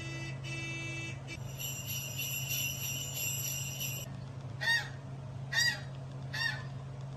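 Small bells jingling for about four seconds, then a dog's squeaky toy squeezed three times, about a second apart, each squeak rising and falling in pitch.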